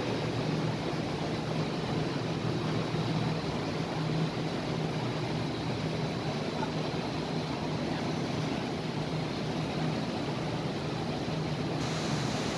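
Steady rushing background noise with a constant low hum underneath; the hiss brightens slightly near the end.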